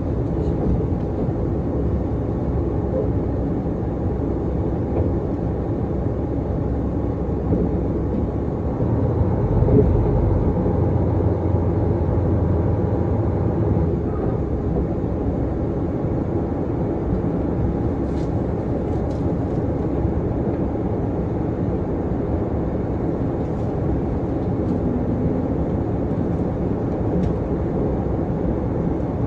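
Inside the cabin of a KiHa 261 series diesel limited-express train pulling into a station platform: a steady low rumble of the engine and wheels on the rails. It swells for a few seconds about a third of the way in, with a few faint light ticks later.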